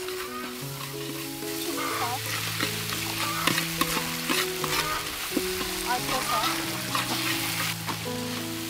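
Garlic and chili paste sizzling in a hot wok, stirred with a wooden spatula that scrapes and taps against the metal.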